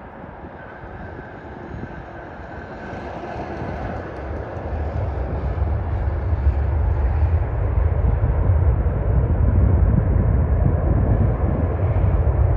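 An airplane's engines growing steadily louder into a deep rumble over several seconds, with a faint high whine that fades after about four seconds.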